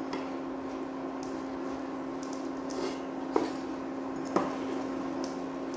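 Kachoris deep-frying in oil with a steady sizzle over a steady low hum. A perforated steel skimmer knocks twice against the kadhai, about a second apart, a little past halfway.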